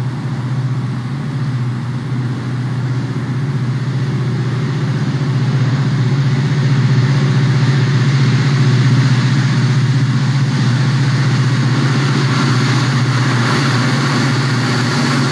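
Southern Pacific diesel freight locomotives approaching, their engines running with a steady low drone that grows louder over the first half as the lead units come nearer.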